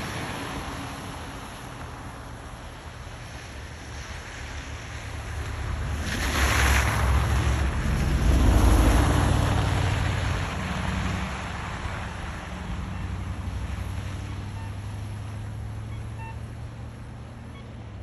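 Snow plow truck's engine running with a steady low hum, under wind rumble on the microphone; a louder rushing swell builds between about six and ten seconds in, then eases back.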